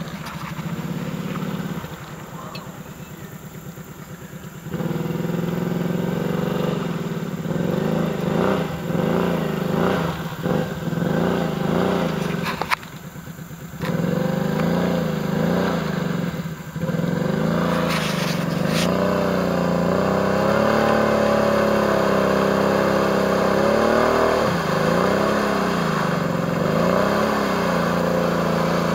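ATV engine revving as it is driven through a muddy pond, the throttle worked up and down so the pitch rises and falls over and over. It drops back quieter for a few seconds early on and briefly about halfway, then runs loudest and most steadily in the second half.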